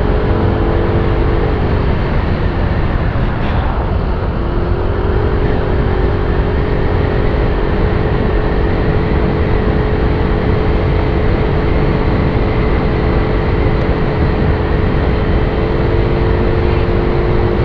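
Heavy wind noise rushing into an open-visor motorcycle helmet and over the microphone inside it, with the motorcycle engine's steady hum underneath. The engine tone fades for a couple of seconds early on, then returns.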